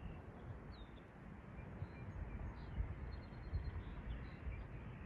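Wind noise on the microphone coming in uneven low gusts, with a few faint, high bird chirps in the background.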